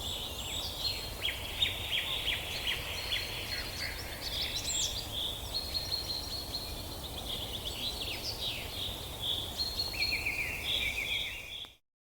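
Several birds chirping and trilling at once over a low background rumble. The sound cuts off abruptly near the end.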